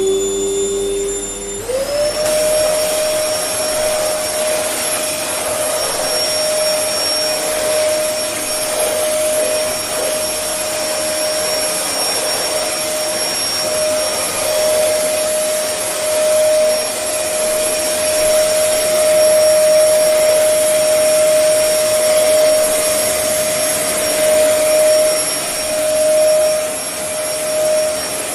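Vacuum cleaner running: its motor whine climbs in pitch about two seconds in as it comes up to speed, then holds a steady high whine over a loud rush of air.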